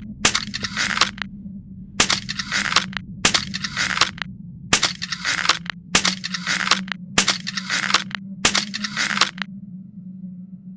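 Crossbow sound effect: a sharp snap with a short noisy release tail, repeated about eight times at roughly one-second intervals. A steady low hum runs underneath.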